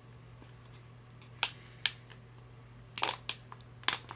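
Thin plastic water bottle crackling in sharp clicks as a toddler chews on it: two single crackles, then a quicker cluster of several near the end.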